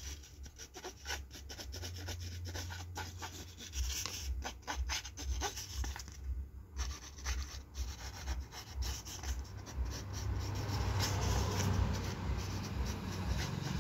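A soft metal glue tube crinkling and rubbing as it is squeezed by hand and its nozzle runs around the rim of a loudspeaker dust cap: a run of small crackles and scratchy rubbing, with a steady low hum underneath.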